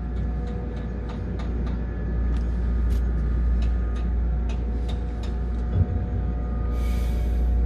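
Steady low rumble inside a tower crane cab in strong wind, with a steady electrical hum, scattered light clicks and a short hiss near the end.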